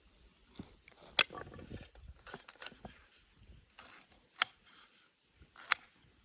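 Food preparation by hand: three sharp clicks or snips, about a second, four and a half seconds and near six seconds in, with short crisp scraping and crunching between the first two.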